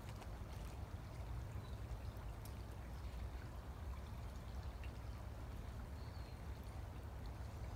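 Faint trickle of creek water under a steady low rumble, with a few light clicks.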